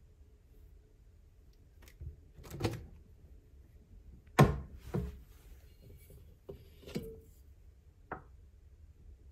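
Hands opening a mini fridge and handling aluminium drink bottles inside it: a series of about seven short knocks and thunks, the loudest about four and a half seconds in.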